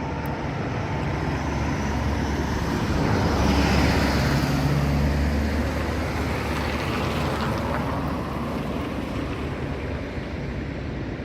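Road vehicle going past: rushing tyre and engine noise with a low hum that swells to its loudest about four seconds in and then slowly fades.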